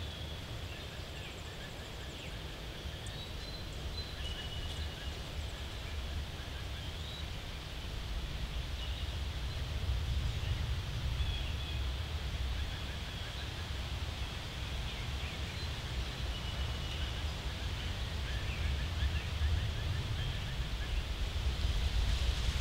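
Outdoor ambience: small birds calling in short whistles and trills, over a low rumble of wind on the microphone that grows louder toward the end.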